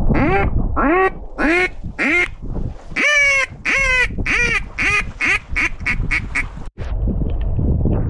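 Mallard hen quacks blown on a duck call: four single quacks, then a descending run of about ten that get shorter and quicker, the classic hail or greeting call. It stops abruptly, leaving low wind and rain noise.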